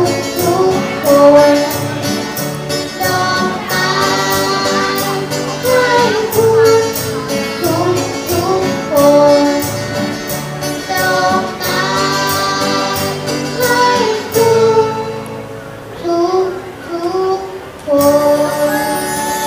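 Live acoustic band: a child singing over acoustic guitar and drums with a steady beat. About fourteen seconds in, the beat drops away and the music thins for a few seconds, then the full band comes back in near the end.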